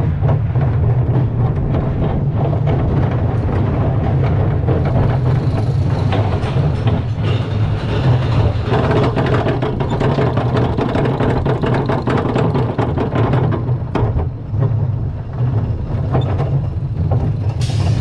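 Steel roller coaster train heard from the front seat: the wheels rumble and clatter along the track, with a stretch of denser, more even clatter midway as the car is pulled up the chain lift hill.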